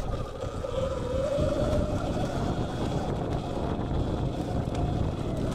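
Sur-Ron Light Bee X electric dirt bike's motor and chain drive whining under way, the whine rising a little in pitch about a second in and then holding steady, over a heavy low rumble of wind on the microphone and tyres on the trail.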